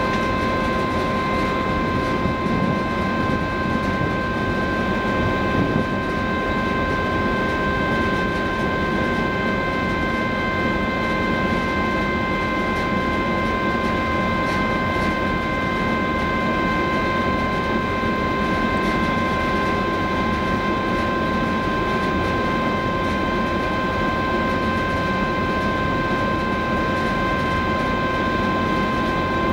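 Steady mechanical drone of the docked cruise ferry Silja Symphony's machinery and ventilation, with several constant high whining tones over a deep rumble, unchanging throughout.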